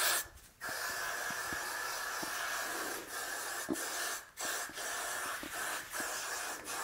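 Got2b aerosol hairspray hissing out of the can in several long bursts with short breaks between them.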